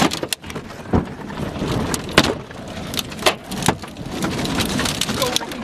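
A car driving through a storm, with a steady rumble and irregular sharp taps and knocks, one to three a second, as wind-driven material strikes the car's body and glass.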